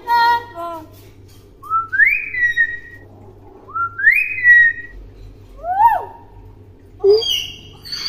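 Hill myna whistling: a short call, then two rising whistles that level off, a quick whistle that rises and falls, and another short call near the end.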